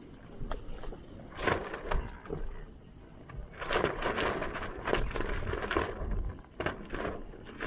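An irregular series of short crunching and cracking sounds, dry wood or other material being snapped and handled, busiest in the middle.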